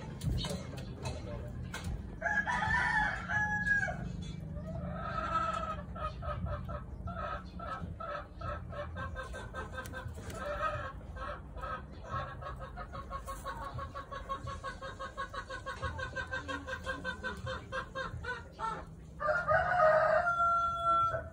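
A rooster crowing twice, about two seconds in and again near the end, each crow ending on a held note, with chickens clucking in a rapid repeated run in between, over a steady low hum.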